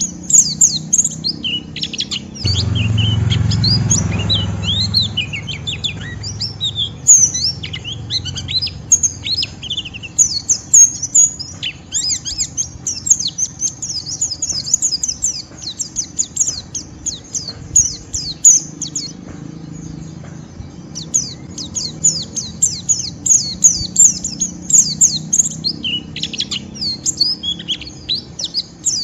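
White-eye (pleci) singing its rapid, harsh chattering twitter (ngeriwik): dense strings of quick high chirps, thinning briefly past the middle. A low rumble sits under the chirps about two seconds in for a couple of seconds.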